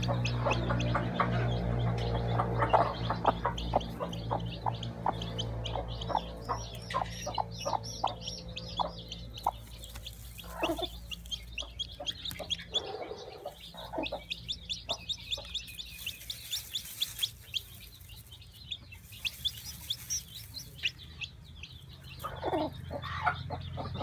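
Broody hen clucking over her nest while a newly hatched chick peeps, a run of short notes repeated several times a second. Brief rustles of straw come twice in the latter half.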